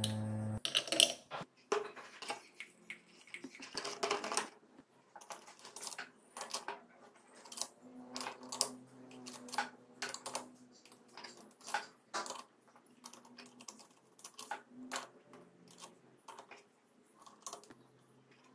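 Irregular light metallic clicks and clinks as clutch friction and steel plates are handled and slid into the clutch basket of a Honda CBR250 MC22 engine. A short steady tone sounds in the first half second.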